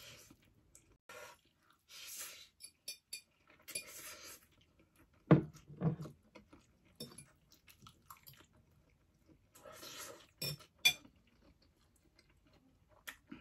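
A person slurping spicy noodles three times, each slurp lasting about a second, and chewing in between, with a fork clicking and knocking on a ceramic plate, loudest about five seconds in.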